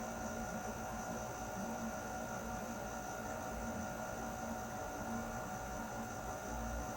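Air conditioner running steadily: an even rush of air over a constant hum, with several fixed tones from the unit's motor and fan.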